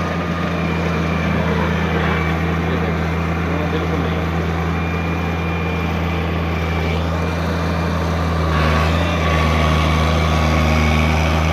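Isuzu 6BG1 six-cylinder diesel engine of an excavator running steadily under working load as the bucket digs, getting a little louder about eight and a half seconds in. The engine has new injection pump plungers and reset pump timing and is running normally.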